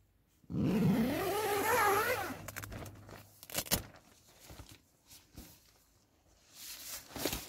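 Onetigris Cosmitto tent door zip pulled open in one long run of about two seconds, its buzz wavering in pitch with the speed of the pull. It is followed by light clicks and rustling of the door fabric being pushed aside, with another short rustle near the end.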